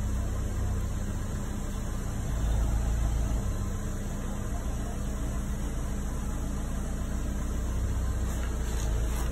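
A motor running steadily nearby: a constant low hum with a steady drone underneath.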